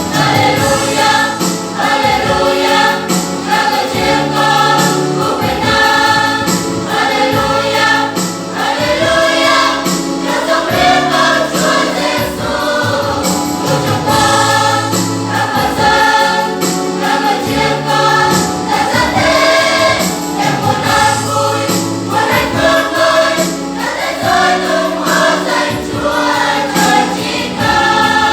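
Choir singing a Protestant hymn over instrumental accompaniment with a steady bass line.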